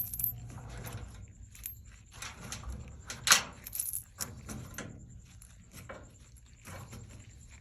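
Loose coins clinking and rattling as they are picked out of a dryer cabinet, a series of irregular small metallic clicks and knocks, loudest about three seconds in.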